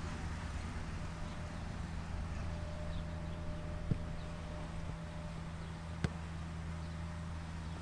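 Steady outdoor background rumble with three sharp knocks, about four seconds in, about six seconds in and near the end, the last the loudest: a soccer ball being struck during shooting practice.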